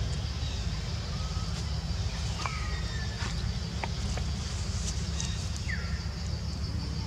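Outdoor ambience: a steady low rumble under a steady high-pitched drone, with a few short, falling chirps and some faint ticks.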